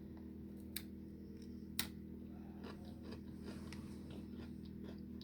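Crunchy ginger biscuit being bitten and chewed: two sharp cracks in the first two seconds, then a run of small crunching clicks.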